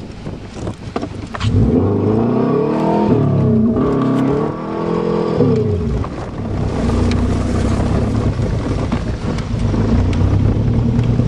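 Subaru Legacy's boxer engine revving up and dropping back twice in quick succession, then pulling steadily.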